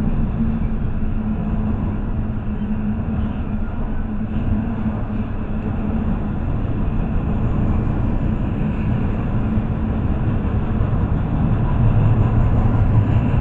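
Double-stack intermodal well cars rolling past close by: a steady rumble of steel wheels on rail, getting a little louder near the end.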